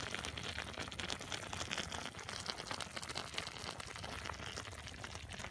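Barbecue sauce boiling around grilled chicken pieces in a pan, a steady crackle of small bubbling pops as the sauce boils down to thicken.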